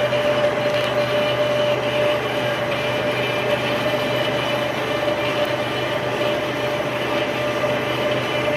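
Metal lathe running while machining a coupling: a steady mechanical noise with a constant mid-pitched whine and a low hum underneath.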